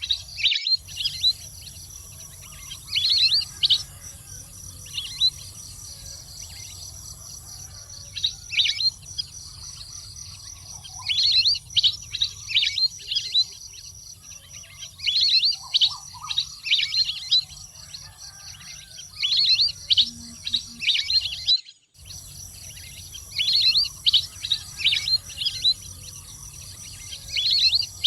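Calls of a waterbird (Thai 'nok pet nam'): clusters of quick, high chirping notes repeated every three to four seconds over a steady high insect-like hum. The sound briefly cuts out about three-quarters of the way through.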